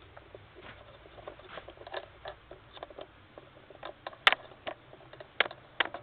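Light clicks and taps from a tripod being handled and extended, with a few sharper clicks in the second half.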